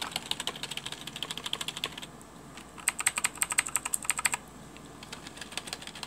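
Rapid typing on two keyboards in turn, a Cooler Master Octane membrane keyboard and a Redragon Indrah mechanical keyboard with blue switches. A softer run of keystrokes lasts about two seconds, then after a short pause comes a sharper, clickier run with a crisp high click on each keystroke.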